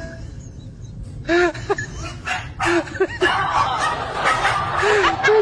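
Human laughter: short chuckles from about a second in, growing denser and more continuous after about three seconds.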